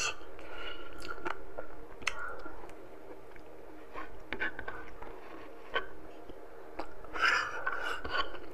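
A person chewing mouthfuls of braised pork afritada close to the microphone, with irregular wet mouth clicks. There is a short breathy sound about seven seconds in.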